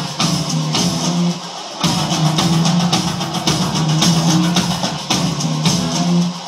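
Music led by guitar with drums, thinning out briefly about a second and a half in.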